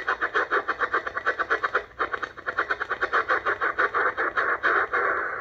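Shortwave receiver's static hiss, heard through its narrow single-sideband filter, chopped into rapid pulses of roughly ten a second as each step of the tuning knob briefly mutes the audio. Near the end the tuning stops and the hiss runs on steadily.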